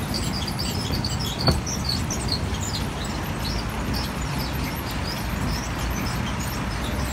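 Steady low rumble of street traffic with many small birds chirping over it, the chirping busiest in the first few seconds and thinning out after. A single sharp click about a second and a half in.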